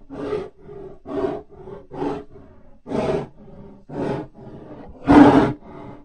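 Creature sound effect made for Arctodus, the extinct short-faced bear: a series of short roaring growls about one a second, the loudest about five seconds in.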